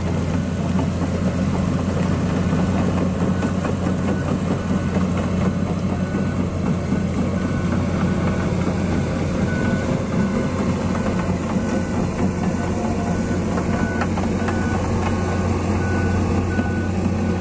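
Komatsu long-reach excavator's diesel engine running steadily as the machine travels on its tracks, with its travel alarm giving short high beeps over and over.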